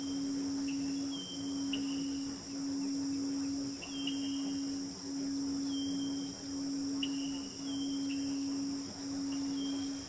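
A steady low tone, the loudest sound, dips briefly about once a second. Beneath it runs a nature bed of crickets: a constant high insect trill with short chirps scattered through it.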